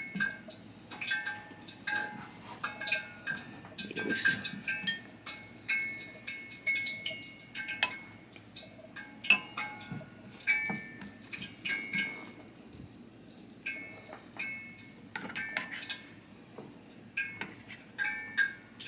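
A ceramic bowl clinking and briefly ringing again and again, at irregular intervals, as chicken pieces are pressed and turned in flour by hand.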